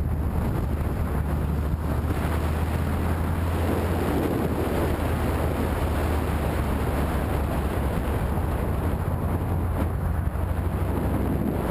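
Motorcycle engine running steadily while riding, mixed with wind noise on the microphone.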